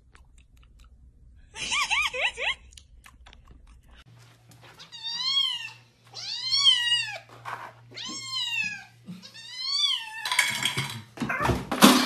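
Domestic cat meowing four times in a row, each call rising and then falling, about a second and a half apart. A loud burst of rustling noise comes near the end.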